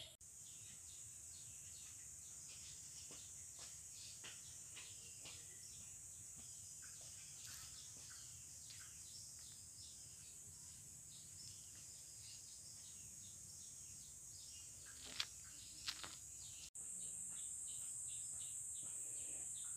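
Faint outdoor garden ambience: steady, high-pitched insect chirring with scattered small bird chirps. Two louder chirps come close together about three-quarters of the way through. Shortly after, the sound drops out for a moment and the insect chirring returns louder.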